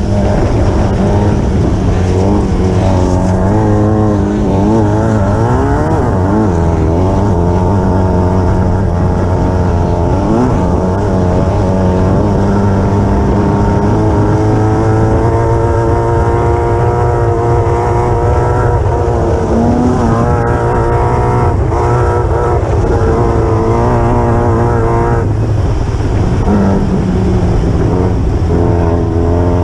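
Class 9 desert race buggy's air-cooled Volkswagen engine running hard on board, the revs climbing and falling through gear changes in the first half, then holding a steady pitch. The engine drops off briefly about 25 seconds in and picks up again, over a constant low rumble and rushing noise.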